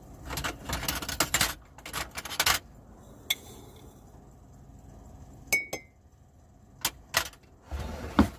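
Metal cutlery rattling and clinking as a utensil drawer is rummaged through, followed by a few separate clinks of a spoon at a jar, one ringing briefly. A short sliding scrape near the end, like the drawer being pushed shut.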